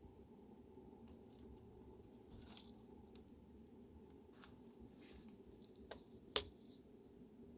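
Faint, scattered small crackles and clicks from a chipmunk at close range, with one sharp click about six seconds in, over a low steady hum.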